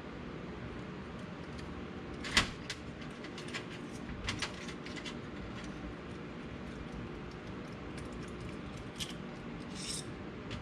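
Parts and hand tools being handled during suspension work: a few sharp clicks and knocks, the loudest about two and a half seconds in and another right at the end, over a steady low hum.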